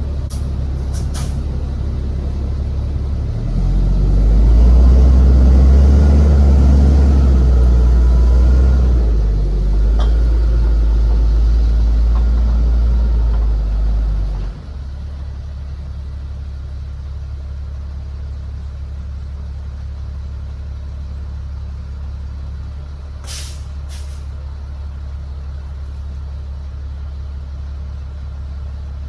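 1975 drill rig's engine running at idle, revved up about three seconds in and held for some ten seconds, then dropping back to a steady idle. Short hisses of air from the rig's air-brake system about a second in and again near the end.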